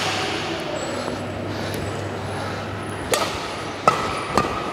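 Badminton racket strikes on a shuttlecock: one sharp hit at the very start, then after a pause two more about three and four seconds in as a fast drive rally gets going. Each crack rings on in the large hall.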